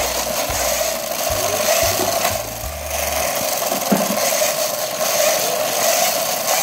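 A Hot Wheels toy truck transporter, cranked up by hand, whirring steadily as its wound-up drive runs it across a hard laminate floor.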